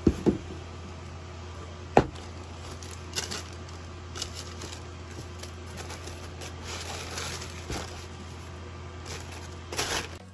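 Cardboard shoebox being handled and opened, with sharp knocks near the start and a loud one about two seconds in, then scattered rustling of the tissue paper wrapped around the foam clogs. A steady low hum runs underneath.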